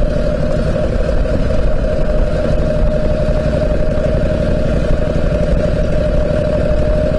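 Harley-Davidson Panhead V-twin engine running at a steady cruise as the motorcycle rides along, its pushrods freshly repaired. The pitch and level stay even, with no revving or gear change.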